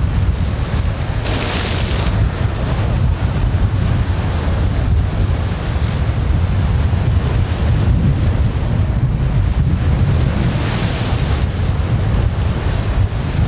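Wind buffeting the microphone: a heavy, steady low rumble, with two brief brighter hissing gusts, about a second in and about ten seconds in.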